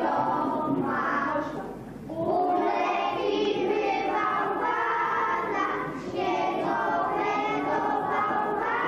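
A group of children singing a song together, with a brief drop between phrases about two seconds in.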